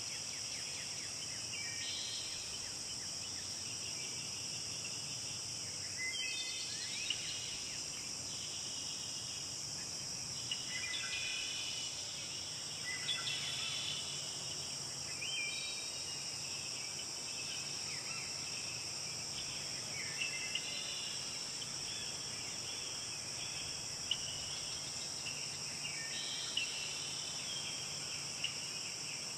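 Forest ambience: a steady, high-pitched chorus of insects such as crickets, with bird chirps and short gliding calls coming and going every few seconds.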